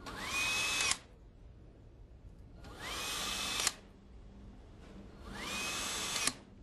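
Handheld power driver running three times, about a second each, driving fasteners. Each run has a whine that rises quickly in pitch and then holds steady, and each ends abruptly with a sharp click.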